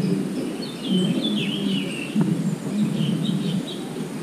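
Small birds chirping in short phrases, about a second in and again near three seconds in, over a steady low rumbling noise that is louder than the birds.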